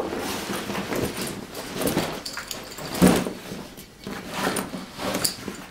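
A rubberized canvas Swiss military surplus rucksack being handled and rustled as a wool blanket is stuffed into the bottom, with a thump about three seconds in and a few light clicks of buckles or hardware near the end.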